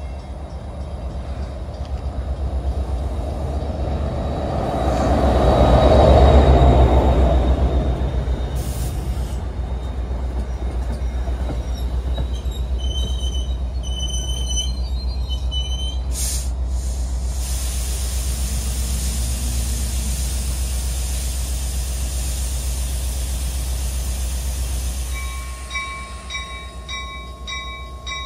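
NJ Transit PL42AC diesel locomotive and its Comet V coaches arriving: the locomotive passes loudest about six seconds in, then the coaches roll by with a steady rumble and brief high squeals about halfway. Near the end the train stops and a repeated beeping starts.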